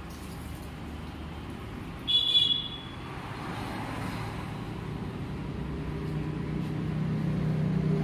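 A vehicle engine hums steadily and grows louder over the last few seconds. A brief high-pitched chirp comes about two seconds in.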